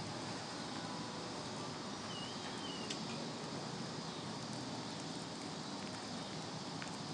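Steady outdoor background noise, a low even hiss with no clear single source, with a brief faint wavering chirp about two seconds in.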